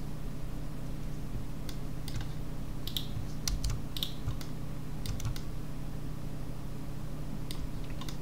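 Computer keyboard keys and mouse buttons clicking now and then, a dozen or so scattered clicks bunched around the middle, over a steady low hum.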